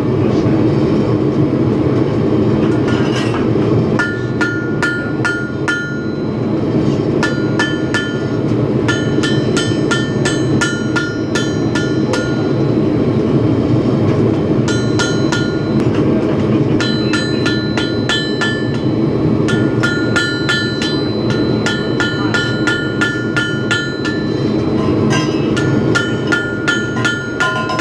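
Hand hammer striking a red-hot railroad spike on an anvil in runs of quick blows, about four a second with short pauses between runs, the anvil ringing at each strike. Under it runs a steady low roar from the start.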